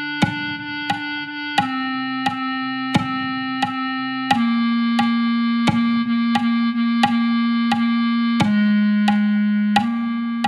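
Playback of a clarinet part in a band arrangement. Sustained notes change every bar or two over a sharp click on every beat, about one and a half clicks a second.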